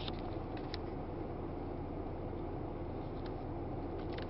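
Steady low background rumble, with two faint clicks, one under a second in and another after about three seconds.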